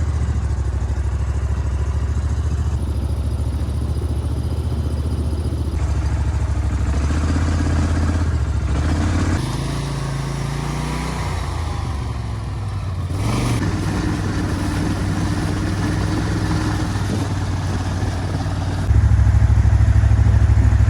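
An engine running steadily, with a low droning hum that shifts abruptly in pitch and loudness several times.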